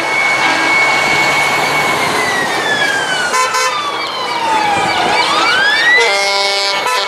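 1980s fire truck's LTS siren wailing: a high note held for about two seconds, then falling slowly for about three seconds and sweeping quickly back up to the high note. A short horn toot comes about halfway through and a longer horn blast near the end, over the engine noise of passing trucks.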